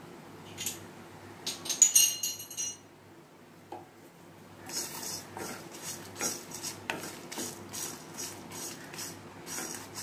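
A wooden spatula stirring whole spices that are dry-roasting in a nonstick kadhai: repeated scraping strokes, about two a second, from about halfway through. Earlier there are a few clinks with a brief metallic ring, the loudest near two seconds in.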